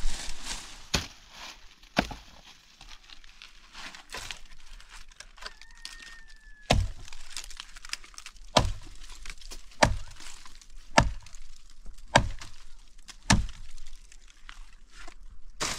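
Repeated heavy strikes of a hand tool, a sharp crack roughly every second or so.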